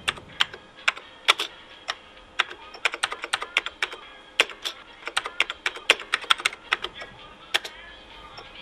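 Computer keyboard typing: a run of irregular key clicks, a few a second, that stops about a second before the end.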